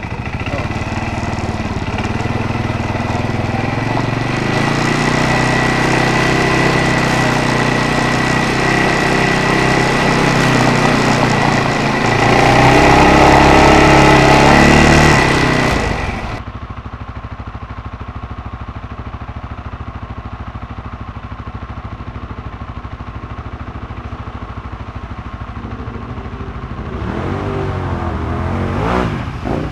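ATV engine running under way with a steady high whine, revving up a little past the middle, then dropping abruptly to a quieter, duller engine drone. Near the end other ATV engines come closer, rising and falling in pitch as they rev.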